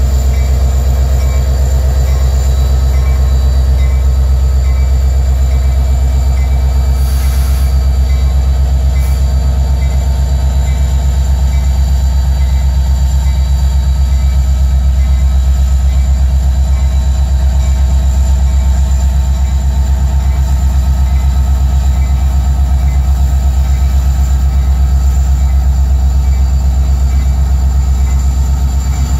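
Union Pacific diesel-electric locomotives passing slowly at close range, their engines running with a steady deep rumble.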